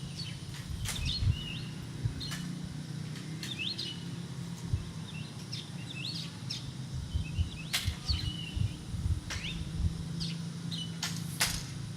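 Several wild birds chirping in short, scattered calls, over a steady low hum, with a few sharp clicks and irregular low thumps.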